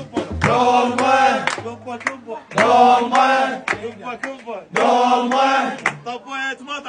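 Men chanting an Iraqi folk song in three loud phrases about a second long each, with sharp percussive hits between and under the phrases.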